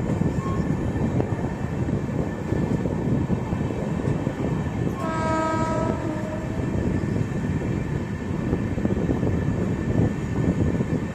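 Indian Railways passenger train running at speed, a steady rumble of wheels and coaches on the track. About five seconds in, a train horn sounds once for about a second.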